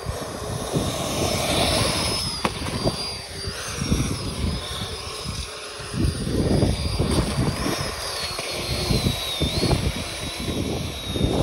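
The two 50 mm electric ducted fans of a radio-controlled hovercraft running, with a rush of air. A thin high whine wavers up and down in pitch with the throttle and slides lower toward the end.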